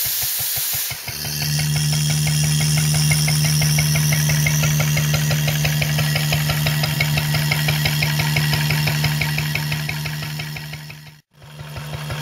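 1939 Lister D single-cylinder four-stroke stationary engine running at a steady speed with a fast, even beat, belt-driving a Lister Bros. blower, under a steady low hum. A hiss of air in the first second, and the sound cuts out briefly near the end.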